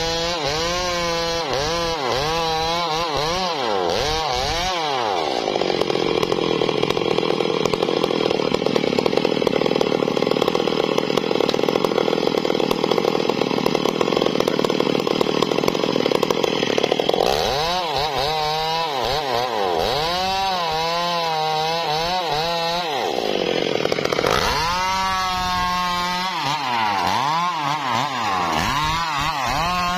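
Two-stroke chainsaw engine blipping its throttle up and down. About five seconds in it is held at full speed for some twelve seconds, then it goes back to quick revs, with one shorter full-speed stretch near the end.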